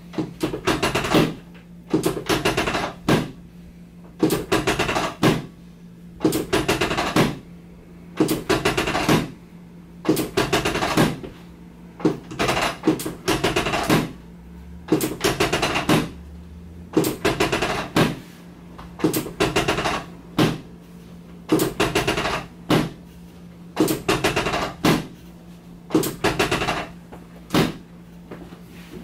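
Handheld chiropractic adjusting instrument firing in short bursts of rapid clicks, one burst every second or two, over a steady low hum.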